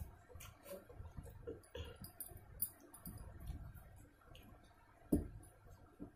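Eating by hand from a steel plate: fingers mixing and scooping rice against the metal, with scattered small clicks and mouth smacks of chewing. One louder knock comes about five seconds in.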